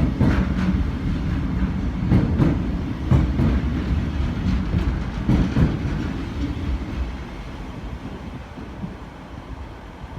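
Engineers' train hauled by a Class 66 diesel rolling past: a heavy rumble with pairs of clicks as the wagon wheels cross rail joints. It fades away over the last few seconds as the train moves off.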